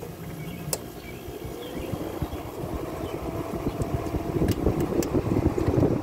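Late-1980s Fedders-built window air conditioner just switched off, its fan winding down with a faint drifting hum, under wind rumbling on the microphone that grows louder toward the end.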